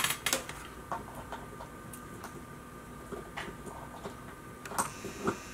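A few scattered light clicks and ticks, the sharpest right at the start, over a faint steady background hum.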